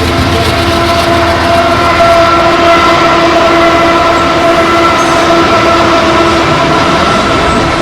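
Union Pacific diesel locomotive air horn sounding one long, loud chord over the low rumble of a passing intermodal freight train. The lowest note of the chord drops out a little after six seconds.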